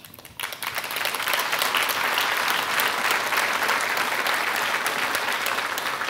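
Audience applause: a few claps at first, swelling within the first second into steady, dense clapping that carries on.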